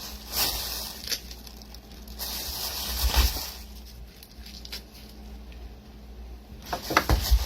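Bok choy being handled, giving bursts of rustling and crackling, with a few sharp knocks near the end.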